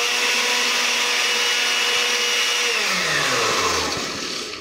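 Stand blender with a glass jar running steadily at speed, blending milk and matcha powder. About three seconds in it is switched off, and the motor winds down with a falling hum.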